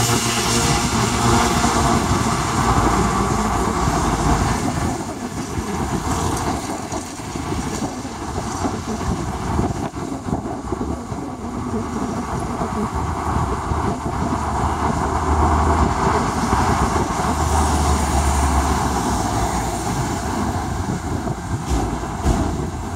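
Continuous street traffic noise: a steady rumble of vehicles that swells as one passes, with a low engine hum in the second half.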